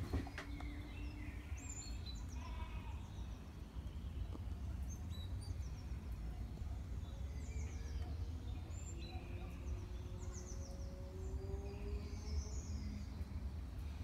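Small birds chirping and calling around hanging bird feeders, short high notes scattered throughout, over a low steady rumble.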